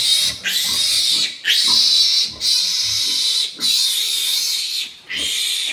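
Newborn piglet squealing over and over, loud high-pitched screams of about a second each with short breaks, the distress squeal of a piglet held down for its iron injection.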